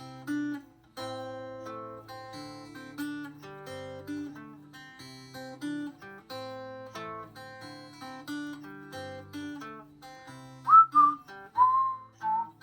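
Acoustic guitar fingerpicked in Travis style, a steady alternating bass under picked treble notes, moving through C, A minor, D minor 7 and G chords. Near the end a person starts whistling a melody over the guitar, louder than the picking.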